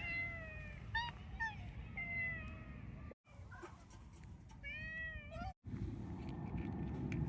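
A cat meowing about five times: a falling meow, two short ones, another falling meow, and a longer meow that rises then falls about five seconds in, over a steady low rumble.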